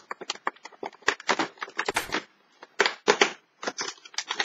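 Cardboard door of a chocolate advent calendar being picked and torn open with the fingers, giving a quick, irregular run of sharp clicks, crackles and scraping rustles.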